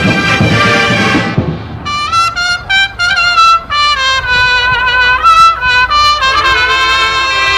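Drum and bugle corps playing: the full horn line with drums until about a second and a half in, then the high bugles carry the melody alone, with no drums.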